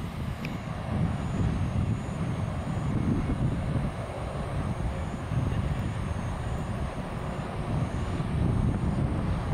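Low, uneven rumble of outdoor city background noise, swelling and easing without any distinct event.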